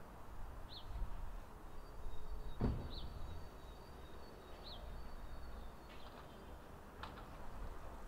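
Outdoor background: a steady low rumble with a few short bird chirps, one knock about two and a half seconds in, and a faint steady high tone through the middle.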